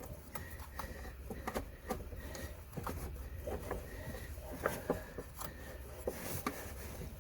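A rubber CVT drive belt being worked by hand over the lip of a Yamaha RMAX 1000's clutch sheave: faint rubbing with scattered light clicks and knocks.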